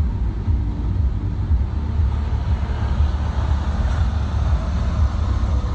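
A van driving, heard as a steady low rumble of engine and road noise.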